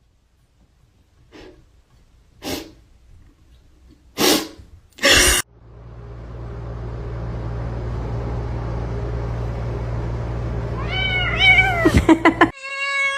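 A cat meowing: a few short bending meows about eleven seconds in, then a longer, steadier meow at the very end. Before them come several short noisy bursts and a long stretch of steady low hum under a faint hiss.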